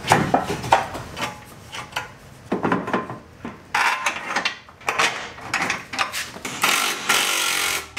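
Plastic and foam front-bumper parts being handled and pressed onto a car's bumper beam: irregular knocks, clicks and rubbing. A steadier rushing noise lasts about a second near the end.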